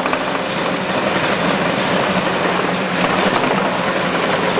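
Geo Metro engine running on with its gasoline supply shut off, starved of fuel and about to stall. The noise is steady.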